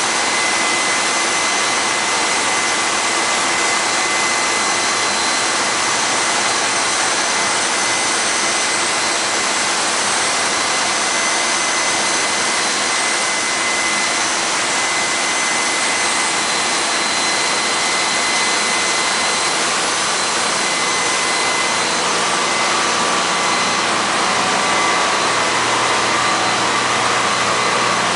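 Loud, steady engine-room din of a tanker's running machinery, with diesel engines, pumps and ventilation blending into a dense roar with a few steady high-pitched whines. The mix of tones changes slightly in the last few seconds.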